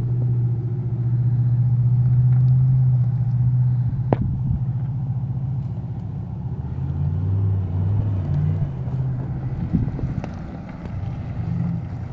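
Off-road vehicle's engine running at low revs in first gear as it crawls over terrain, steady at first, then wavering up and down, with a sharp knock about four seconds in.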